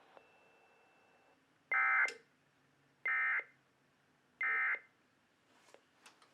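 EAS encoder/decoder (Endec) sending the end-of-message signal of a required weekly test: three short bursts of warbling SAME data tones about a second and a half apart. A few faint clicks follow near the end.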